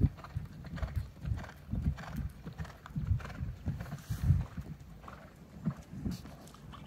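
A horse cantering on sand arena footing, its hooves landing as repeated dull, muffled thuds in an uneven rolling rhythm.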